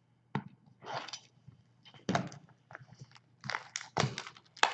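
Trading cards and their packaging being handled: a string of short crinkling rustles broken by several sharp clicks, the loudest near the end.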